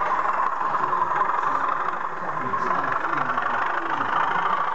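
Recorded diesel engine sound from a sound-fitted model diesel locomotive's onboard speaker, running steadily as the locomotive moves, with the chatter of onlookers around it.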